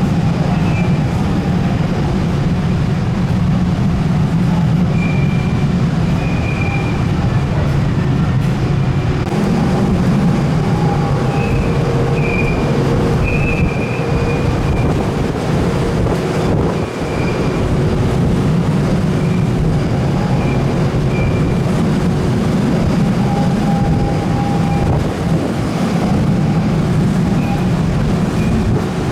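Steady low rumble of a large ferry under way, its engines and hull noise with a hiss of water or wind over it.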